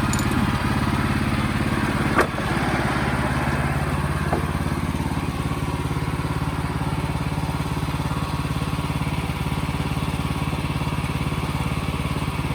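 Wood-Mizer portable sawmill's engine running steadily, with one sharp knock about two seconds in.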